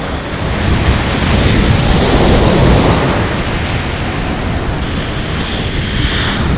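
Heavy surf breaking and washing over the jetty's rock blocks, with strong wind buffeting the microphone into a constant rumble; the roar swells to its loudest about two seconds in.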